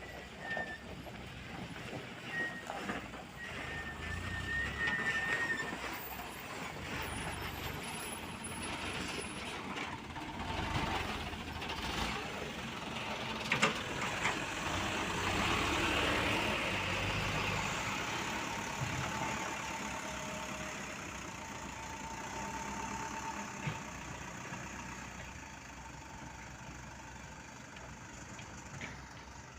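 Diesel engines of a mini excavator and a small dump truck running under work, swelling louder in the middle and easing off toward the end. A few short high chirps sound in the first few seconds.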